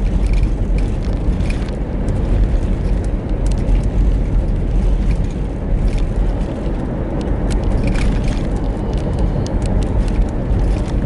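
Steady road and engine noise heard inside a moving car's cabin: an even low rumble.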